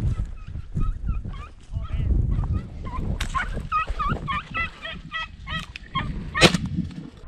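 Red-legged partridge calling: a run of short, repeated clucking calls that come faster and more regularly from about three seconds in, over a low rumble from walking. One sharp knock about six and a half seconds in.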